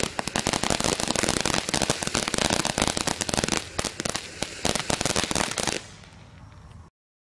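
A 200-gram firework fountain spraying sparks with dense crackle, a rapid stream of sharp pops. A little before six seconds in the crackling stops and a faint hiss is left, which then cuts off suddenly.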